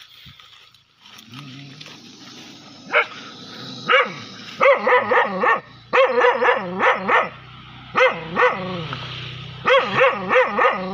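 Dog barking repeatedly, single barks at first and then quick runs of several barks a second, over a low steady hum.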